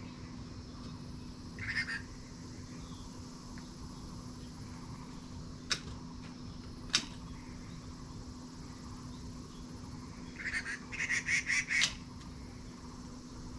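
An animal calling: one short call about two seconds in, then a quick run of about six repeated calls near the end. A steady low hum runs underneath, with two sharp clicks in between.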